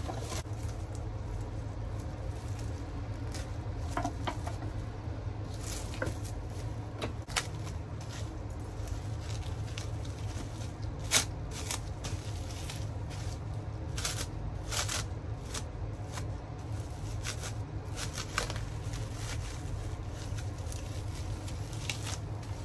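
Plastic cling film crinkling and crackling as it is wrapped around a folded nori sushi and squeezed by gloved hands, with scattered sharp crinkles, the loudest about eleven seconds in, over a steady low hum.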